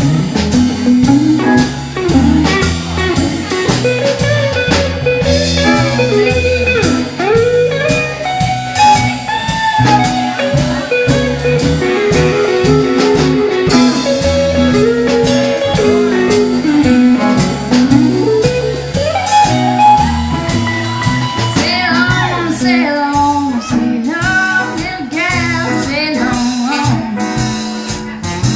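Western swing band playing an instrumental break of a blues: a guitar picks the lead line over upright bass and a steady drum beat.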